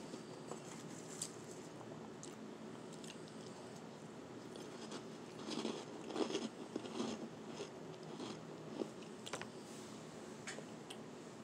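Close-miked biting and chewing of powdery shaved ice: soft crunches throughout, with a louder run of crunches about halfway through.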